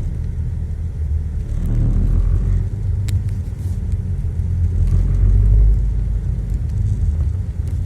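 Low hum and rumble inside a Geely car's cabin while driving in second gear, swelling twice as it picks up speed. The owner suspects a sagged front engine mount touching the body and sending vibration into the car.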